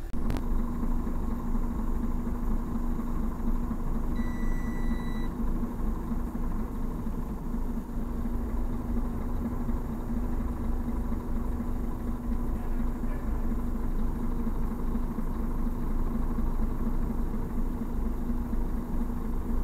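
Truck diesel engine idling steadily, with a short high beep about four seconds in.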